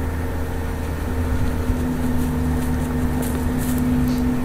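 A running motor humming steadily: a low rumble under a few constant tones, one of which grows stronger about a second in. A few faint ticks sound over it.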